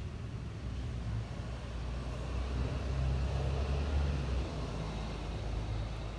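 Passing road traffic: a motor vehicle's low engine rumble and road noise swelling to a peak three to four seconds in, then easing off.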